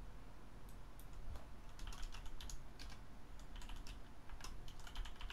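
Typing on a computer keyboard: a quick run of key clicks, sparse at first and thickening into a dense patter from about two seconds in.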